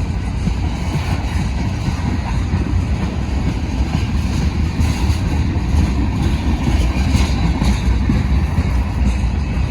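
Long manifest freight train rolling past: a steady low rumble, with some light clatter in the middle of it.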